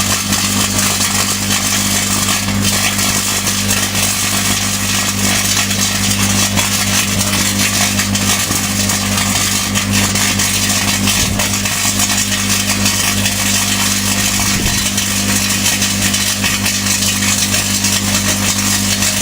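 Microwave oven running with a loud steady mains hum under a continuous crackling hiss of tin foil arcing inside it and throwing off plasma.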